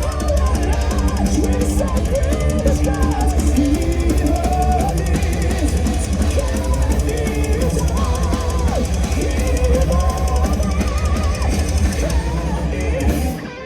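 Heavy metal band playing live at full volume: a pounding drum kit and distorted electric guitars under a singer's wavering voice. Near the end the band drops out abruptly.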